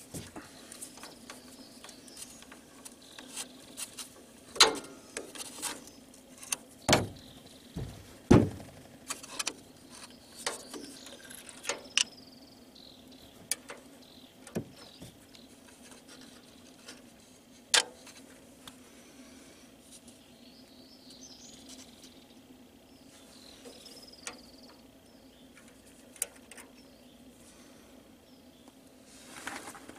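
Scattered clicks, clinks and knocks of a small socket ratchet and loose metal parts being handled while the air cleaner housing comes off a generator's carburetor, with several louder knocks in the first half, over a faint steady hum.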